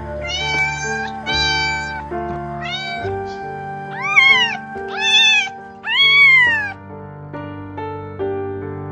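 Domestic cat meowing, the loudest three calls about four, five and six seconds in, each rising then falling in pitch, over background music with held notes.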